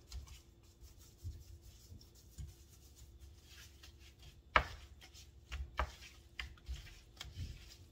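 Gloved hands rubbing olive oil and spices into raw salmon fillets on a metal sheet tray: soft, irregular rubbing with a few sharp clicks, the loudest about halfway through.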